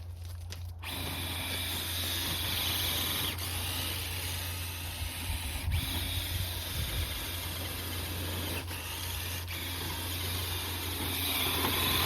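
RC crawler driving through snow: its brushless electric motor running and the tires churning snow make a steady hiss that starts about a second in.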